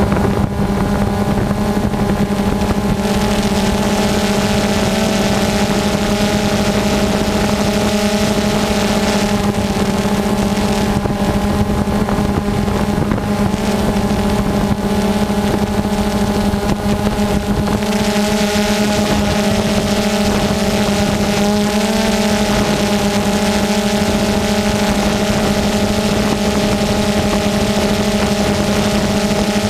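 Small multirotor drone's electric motors and propellers humming at a steady pitch, with wind noise over the microphone.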